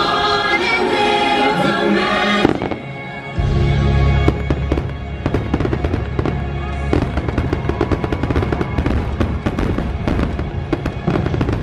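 Theme-park show music for the first couple of seconds, then, after a brief cut, a fireworks display going off: low booms and dense, continuous crackling of many bursts, with the show's music still faintly underneath.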